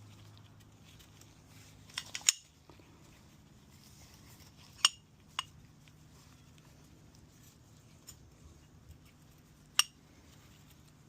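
Small metal engine parts clinking and clicking as they are handled by hand: about five sharp clicks at irregular spacing, over a faint steady hum.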